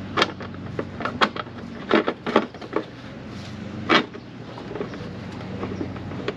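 About five sharp knocks and clunks, a couple of seconds apart, from parts being handled and fitted in a Jeep's engine bay, over a steady low hum.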